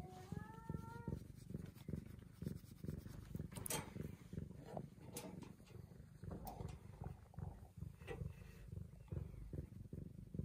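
Brown tabby cat purring steadily while being petted, with a short rising meow right at the start and a few faint clicks.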